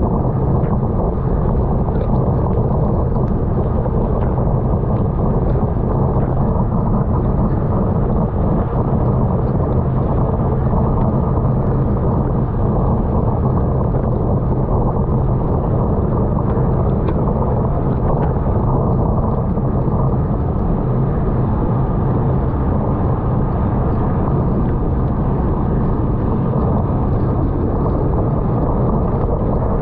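Steady wind noise rushing over a racing cyclist's camera microphone at speed, with a few faint ticks.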